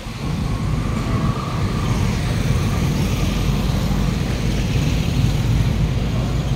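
A motor vehicle engine running with a steady low rumble, amid passing road traffic.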